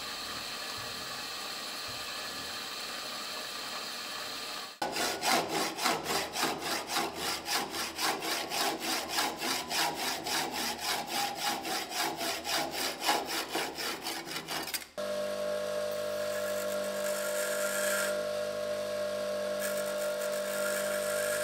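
A machine runs steadily for about the first five seconds. Then a hacksaw cuts metal held in a lathe chuck with quick, even strokes for about ten seconds. Then a 150 mm bench grinder runs steadily with a level hum while a small screw is ground at its wheel.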